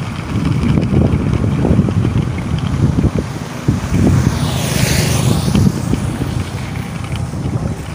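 Wind buffeting the microphone of a skater rolling along a road, a heavy gusting rumble. About halfway through, a brief rushing hiss rises and falls as a motorcycle passes close by.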